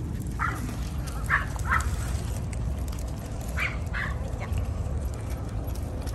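Dogs giving five short, high yips: one, then a pair about a second in, then another pair near four seconds. Under them runs a steady low rumble of wind on the microphone.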